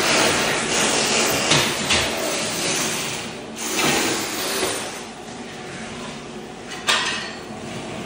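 Ceramic floor tile being scraped and broken off a concrete slab, with shards clattering and grinding, swelling and fading, and a sharp crack about seven seconds in.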